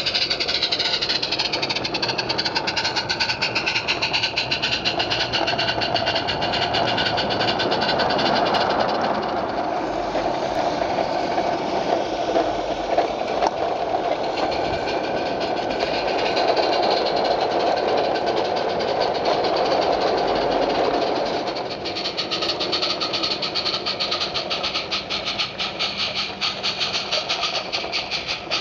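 16mm-scale live-steam garden-railway locomotive running with a train of vans: steady steam hiss with its exhaust beating. About two-thirds through, the hiss drops and a fast, sharp ticking patter of exhaust beats takes over.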